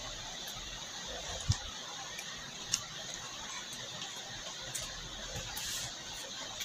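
Eating by hand from a plate: a few soft clicks and ticks and one light knock over steady room hiss.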